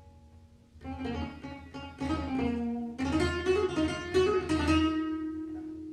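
Background music of plucked guitar notes, starting about a second in after a brief near-silent pause.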